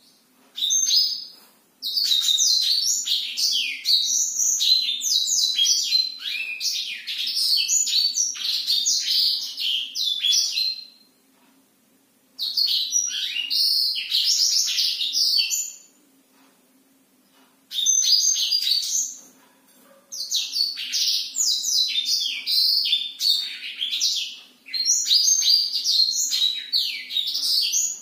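Blackthroat (black-throated canary) singing long, rapid rolling phrases of high twittering notes in several bursts, the longest running about nine seconds, with pauses of a second or two between them.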